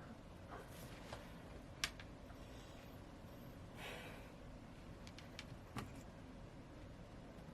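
A few faint clicks and taps and a short rustle from handling the opened phone and repair tools on a work surface, over a low steady hum.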